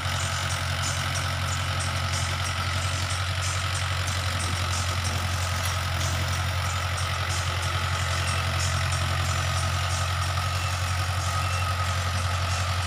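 Mahindra 575 tractor's diesel engine running steadily with a low, even drone.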